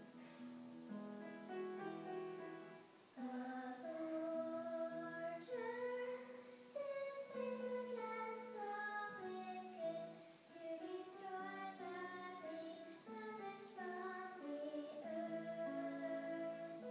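A woman singing a slow melody of long, held notes, accompanied by an instrument holding lower notes underneath.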